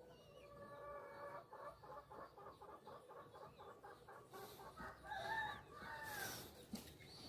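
Faint domestic chickens: a held crow from a rooster near the start, followed by a run of rapid, regular clucks, with a few short gliding chirps from small birds in the second half.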